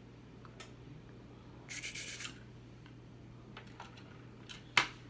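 Faint rubbing and rustling from handling, with a few light clicks and one sharper click near the end, over a steady low hum.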